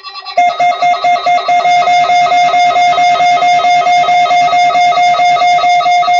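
Electronic alert alarm, likely a weather-alert radio receiver going off: a loud, single-pitched beeping tone that starts about half a second in and pulses about three times a second without changing pitch.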